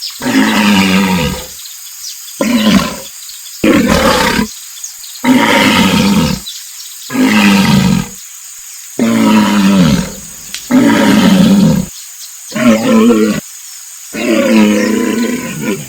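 Hippopotamus calling: a series of about nine loud, deep calls, each roughly a second long, separated by short pauses.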